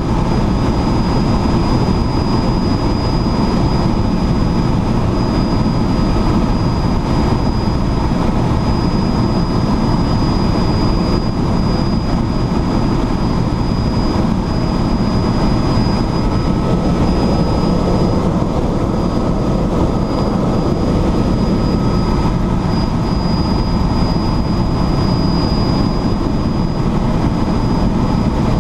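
Helicopter in flight: a steady, loud drone from the rotor and turbine engine, with a constant high whine over it.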